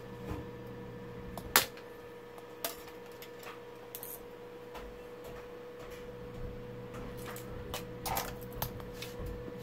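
Light clicks and taps of hand and test-probe handling on a circuit board at a workbench, one sharp click about a second and a half in and a cluster of small taps near the end, over a steady electrical hum.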